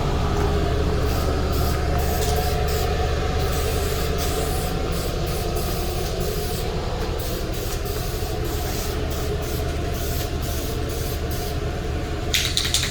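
Shop ventilation fan running with a steady low drone. Near the end an aerosol spray-paint can hisses in one burst of about a second and a half.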